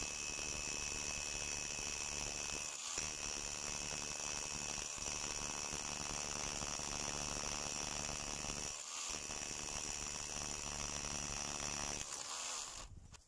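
Parkside PBHA 12 A1 12 V cordless hammer drill running steadily as a 6 mm masonry bit bores through a red brick, with two brief breaks. It stops near the end.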